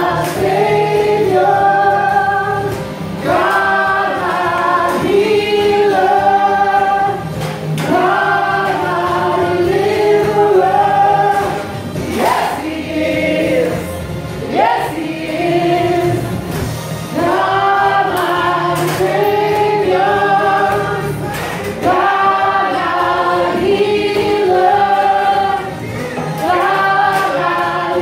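A group of voices singing a gospel worship song, in short phrases that repeat over and over.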